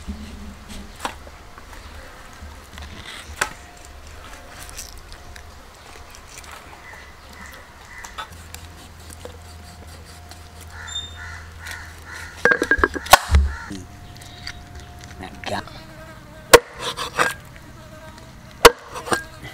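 Flies buzzing around raw tuna: a thin steady hum that comes and goes. A cluster of sharp knocks comes about two-thirds through, and two loud single knocks near the end, as the fish pieces are cut and handled.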